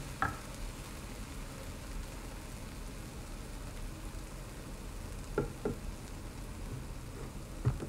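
Scrambled eggs and tortillas in a nonstick skillet sizzling faintly and steadily as the pan cools, with the burner just turned off. A few light clicks, a couple of seconds apart.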